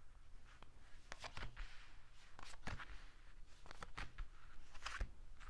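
Cards being drawn off a deck and laid on a tabletop: about a dozen faint, short slaps and flicks at uneven intervals.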